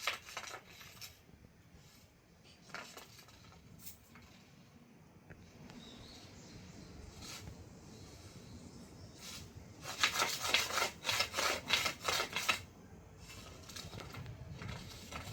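Irregular scratching and rubbing on a surface, with a quick flurry of scrapes from about ten seconds in that lasts a couple of seconds.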